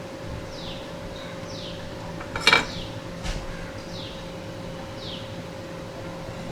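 A single sharp metallic clink about two and a half seconds in, with a smaller tap about a second later, over a steady low hum. A short falling chirp repeats about once a second in the background.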